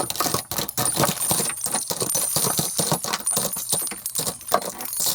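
Rapid, irregular clicking and jingling of small hard objects rattling against each other, with a faint metallic ring.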